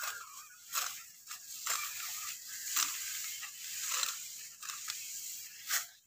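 Dry wheat stalks crunching and rustling as they are cut by hand at the base, in irregular crisp strokes about once a second.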